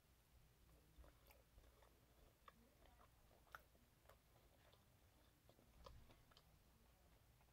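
Faint close-mouthed chewing of fried chicken, with soft scattered clicks and one sharper click about three and a half seconds in.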